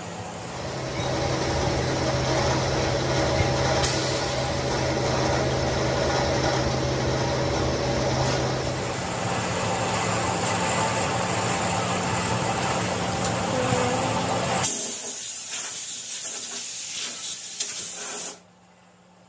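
Shop machinery running with a steady low hum under a hiss of air. About fifteen seconds in the hum stops and a high air hiss carries on for a few seconds, then cuts off suddenly.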